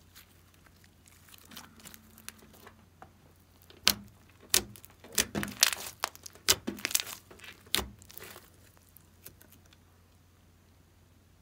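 Hands pressing and kneading glossy slime on a table, giving a run of sharp clicks and pops from about four to eight seconds in. The slime is quiet before and after, with only a few faint ticks.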